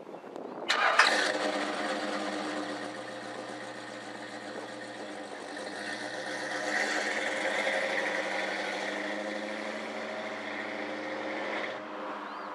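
A Dodge car's engine starting with a sudden burst about a second in, then running steadily as the car pulls away, swelling briefly in the middle before it drops off sharply near the end.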